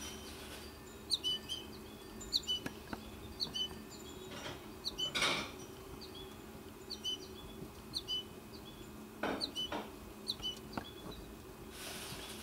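Goldfinch fledgling calling: short, high chirps repeated about once a second over a steady low hum, with a brief swish about five seconds in.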